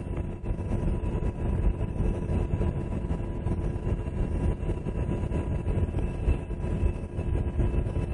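UH-60 Black Hawk helicopter in flight, heard from inside the cabin: the steady, dense rumble of its twin turbine engines and rotors, with a few thin steady whines riding above it.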